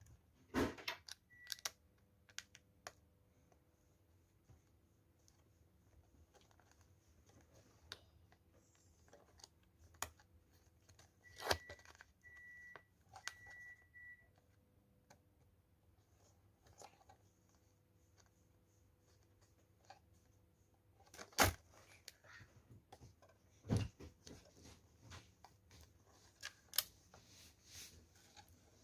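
Scattered small clicks and taps of plastic laptop parts being handled while ribbon cables are pressed into their motherboard connectors and the latches closed, with three short high beeps between about 11 and 14 seconds in.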